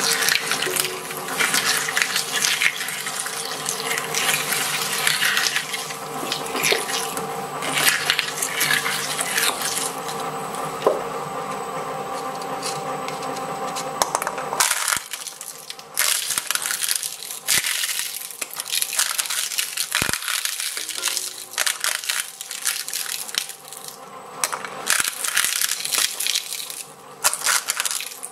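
Twin-shaft shredder running over a steady motor hum. Its cutters crunch and chew up a potato, then, after a short break about halfway through, crush wafer ice-cream cones in bursts of crackling.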